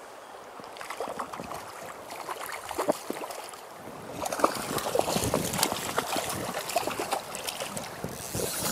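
River water splashing and sloshing close by over the steady rush of the current. The splashing starts about a second in and grows busier and louder after about four seconds.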